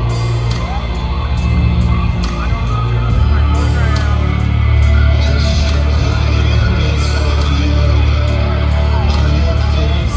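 Loud heavy metal music over a concert sound system, heard from within the crowd, with a deep, steady bass drone that grows heavier about three seconds in. Scattered crowd yells rise over it.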